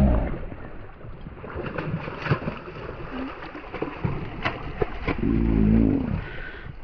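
Wind rumbling on the microphone, with scattered clicks and knocks of rod and reel handling, and a brief wordless vocal exclamation about five seconds in.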